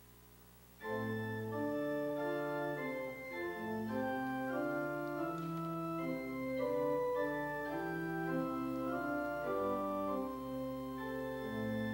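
Church organ playing a hymn introduction, coming in about a second in with full held chords that move from one to the next.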